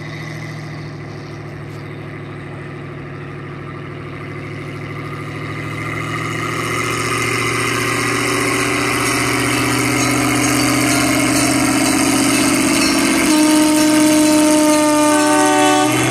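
1928 Plymouth gasoline locomotive's engine running as it hauls a narrow gauge passenger train toward and past, growing steadily louder. Near the end its horn sounds for about three seconds, dropping in pitch as the locomotive passes.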